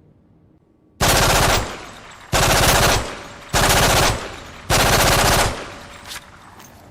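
Automatic gunfire sound effect: four short bursts of rapid fire about a second apart, each trailing off in an echo.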